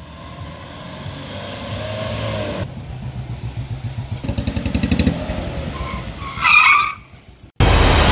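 A vehicle engine running and revving up, then tyres squealing briefly as an SUV brakes hard to a stop about six and a half seconds in. Loud music cuts in suddenly just before the end.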